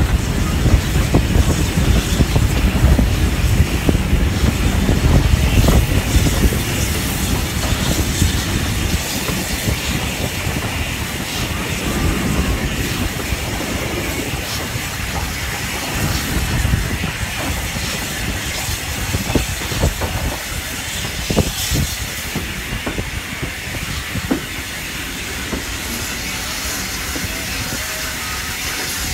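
Steam locomotive running slowly into a station with a steady hiss of steam and the wheels clicking over rail joints and points. A heavy low rumble dies away about a quarter of the way in.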